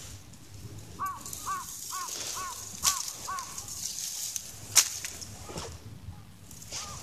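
A bird calling outdoors: a run of six short arched calls, about two a second, and one more call near the end. Two sharp clicks stand out, the louder one about five seconds in.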